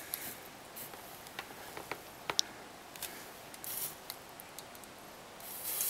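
Faint, irregular scratchy scrapes and small clicks from soldering tools being handled at the bench: the iron's tip being cleaned and solder wire brought to the chip.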